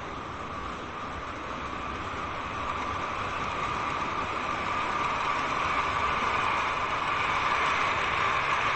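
N-gauge model train of an E231 series 0 set running on the track, a steady whirring of motor and wheels that grows gradually louder.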